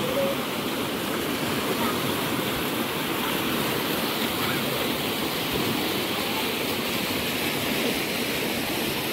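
Fast, shallow river rushing over rocks in whitewater rapids: a steady, even rush of water.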